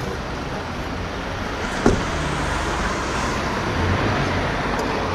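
Steady motor-vehicle noise, with one sharp click about two seconds in.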